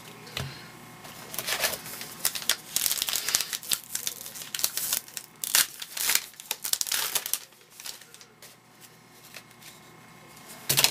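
Baseball card pack wrapper being torn open and crinkled by hand, in a run of quick crackles and rips that dies down about three-quarters of the way through.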